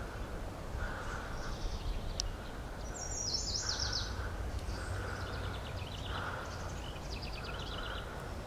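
Small birds singing in open woodland: a fast, falling trill about three seconds in and more quick trilled phrases later. Under them a softer, lower note repeats about once a second over a low steady rumble.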